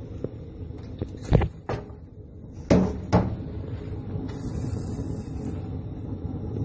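Wood fire in a Russian samovar drawing hard through an extension pipe set over its chimney: a steady low rushing rumble. A few sharp knocks come between about one and three seconds in.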